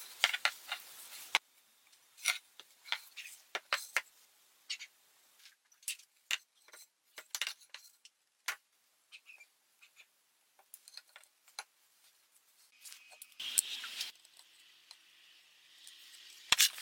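Scattered small clicks, taps and scrapes of hands working a wooden axe handle as twine is wound and pressed onto it, with a longer rustling scrape about thirteen seconds in.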